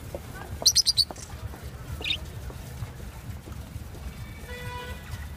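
Caged budgerigars and lovebirds chirping: a quick run of four sharp, high chirps about a second in, then a single shorter chirp around two seconds. A brief steady pitched note sounds near the end, over a constant low background rumble.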